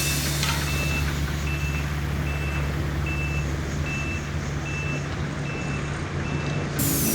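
Backup alarm of a construction machine beeping steadily at one pitch, about once every 0.8 seconds, over the low, steady running of its engine: the machine is reversing.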